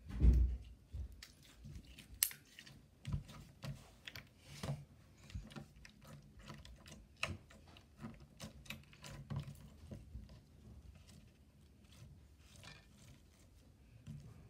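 Slime being kneaded and pressed flat by hand on a wooden desk, making a run of small irregular sticky clicks and pops. A dull thump, the loudest sound, comes right at the start.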